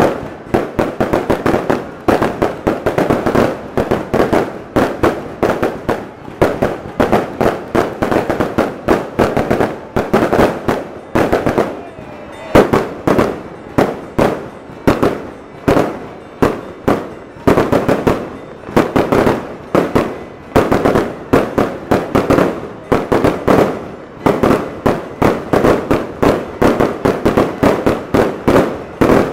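Aerial fireworks shells bursting in a dense, continuous barrage, several sharp bangs a second with hardly a gap, easing briefly about twelve seconds in before building again.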